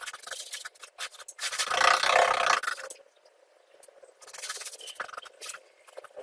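Scraping and rubbing on a hard surface in two bouts of strokes, the louder one about one and a half to three seconds in, a weaker one near the end.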